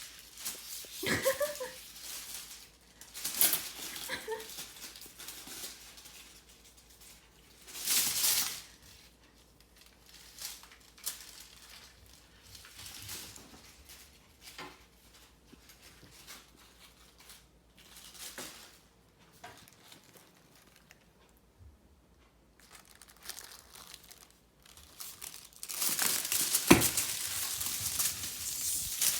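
A crinkly cat toy rustling and crackling as it is grabbed and tugged, in separate bursts, with a longer and louder stretch of crinkling near the end.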